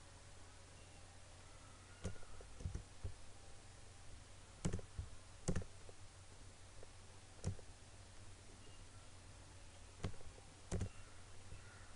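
Computer mouse button clicking several times at irregular intervals, over a steady low hum.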